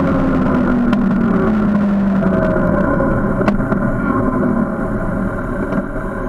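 Motorcycle engine dropping in revs as the bike slows, with the wind rush fading away after two or three seconds, leaving a steadier low engine note and road noise, recorded by a camera mounted on the bike.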